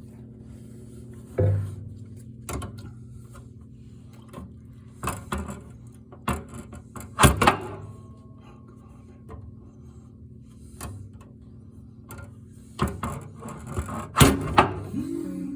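Irregular knocks and clunks from the metal parts of an Ironrite ironer's pedal assembly being struck and handled, the loudest about seven seconds in and several more close together near the end, over a steady low hum.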